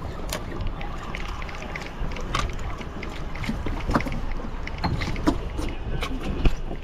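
Wind buffeting the microphone and water against a small boat's hull, with irregular sharp clicks and knocks from a spinning rod and reel being handled during a fight with a fish. A louder knock comes near the end.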